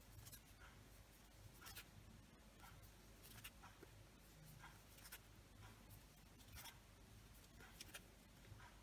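Faint scratchy rustles of a crochet hook and yarn working single crochet stitches, about one a second, over a low steady hum.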